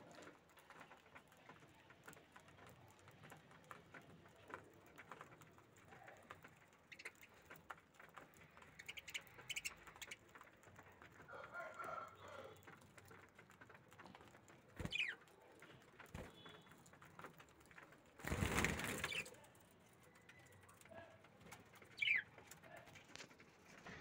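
Budgerigars pecking seed from a dish, with scattered faint clicks and a few short chirps. About three-quarters of the way through, a brief loud rustle of about a second.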